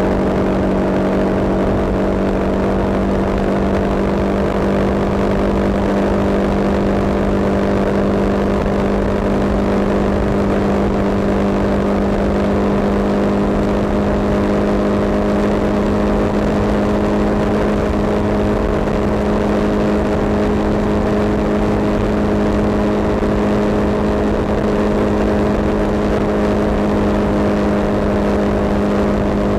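Vehicle engine and tyre noise droning steadily at constant cruising speed on the highway, an unchanging hum over road roar.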